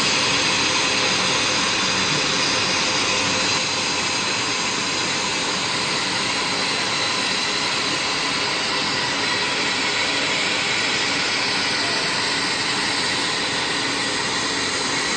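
Fine wire drawing machine with annealer running: a steady, loud mechanical whir with several constant high whining tones from its motors and spinning capstans.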